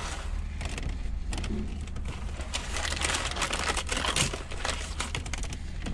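Paper rustling and crinkling in an irregular crackle with scattered clicks, busiest around the middle: fast-food paper wrapping being handled.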